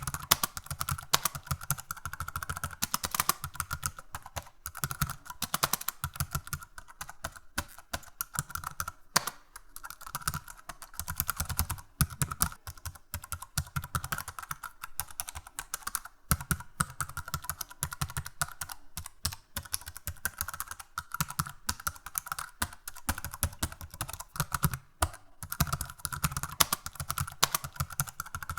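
Computer keyboard being typed on: a fast, uneven stream of key clicks with a few brief pauses.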